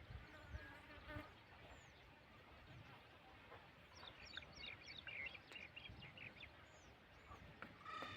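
Faint outdoor ambience: a low rumble with scattered short, high chirps, busier in the second half.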